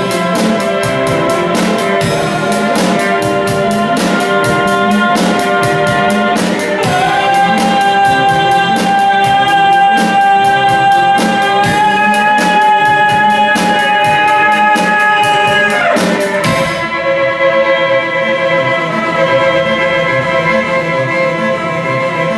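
Instrumental band music with a steady beat. A long held note slides in about seven seconds in and drops away about sixteen seconds in, when the beat stops and only sustained held notes carry on.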